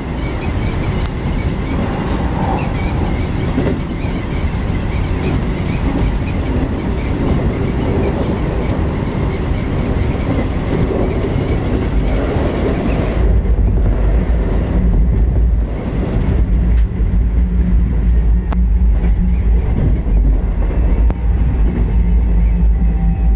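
Keikyu New 1000 series electric train running, heard from inside the car: dense wheel-on-rail running noise with some clickety-clack. About halfway through, the hiss falls away and leaves a deeper rumble with steady low tones. Near the end a faint steady whine comes in.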